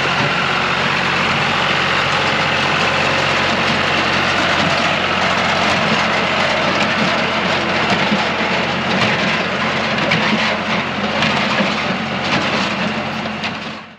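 A tractor engine running steadily while a John Deere 24T square baler works behind it, with rattles and knocks that grow more frequent in the second half. The sound cuts off suddenly at the very end.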